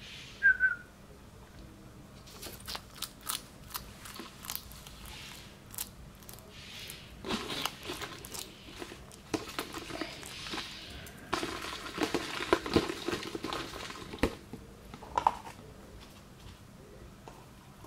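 Lizard chewing a cockroach: a long run of crisp cracks and crunches as its jaws break the insect's hard shell, densest in the middle. A short high squeak comes right at the start.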